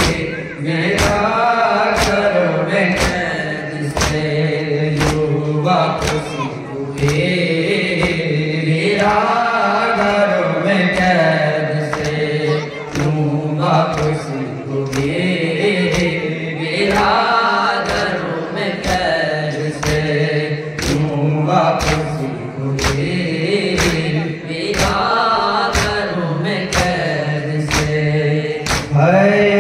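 Nauha, a Shia mourning dirge, chanted by voices in repeated phrases over rhythmic matam (chest-beating), the strikes falling steadily about twice a second.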